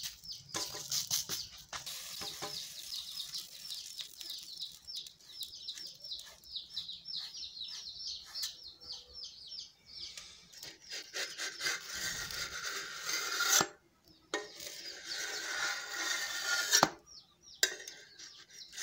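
Wet hands rubbing and pressing pearl-millet (bajra) dough flat on a cast-iron tawa, a soft rubbing sound, while a bird chirps over and over in the background.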